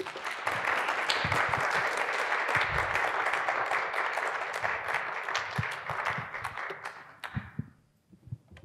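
Small audience applauding, dying away about seven and a half seconds in.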